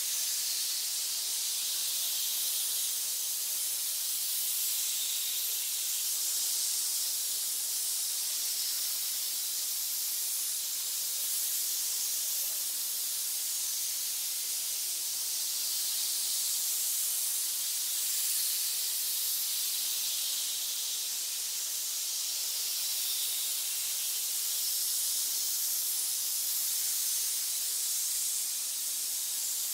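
A pit of many snakes hissing together: a dense, continuous, high hiss that swells and eases slightly every few seconds.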